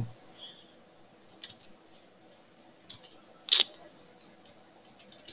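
Low room noise with a few faint ticks and one short, sharp click about three and a half seconds in: computer mouse clicks.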